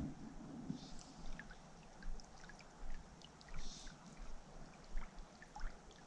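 Creek water running and trickling, with scattered small drips and a few short splashes, one about a second in and another near four seconds.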